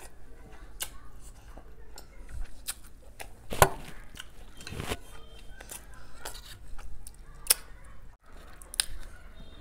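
Close-miked eating sounds: mouth sounds of chewing, with several sharp clicks and knocks as a glass cup of chocolate dessert is picked up from the table. The loudest knock comes about three and a half seconds in.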